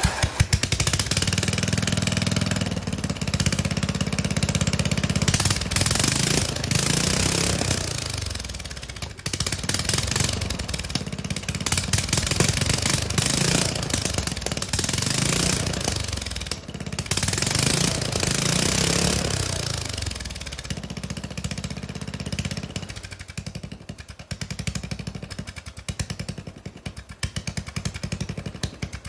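Briggs & Stratton 13.5 hp single-cylinder flathead mower engine running with its muffler removed, so the exhaust port is open and its firing pulses come through sharp and unmuffled. It is revved up and down several times, then runs slower and more unevenly near the end.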